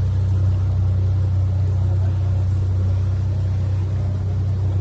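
A tour boat's motor running steadily underway, a constant low drone.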